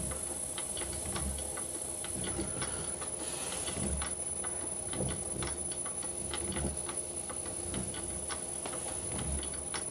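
Electric lathe motor on a variable frequency drive running at low speed and turning its V-belt pulley and belt: a steady hum with faint clicks and a soft low pulse roughly every second. This is the rough, vibrating running that grows more pronounced as the speed comes down, which the owner traces to the drive's torque compensation setting and suspects may also come from the belt.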